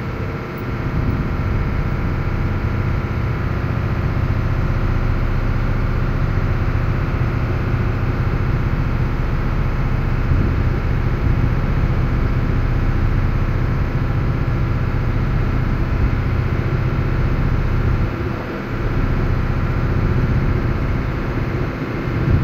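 Ferry's heavy diesel engines running with a steady low drone, easing off briefly near the end.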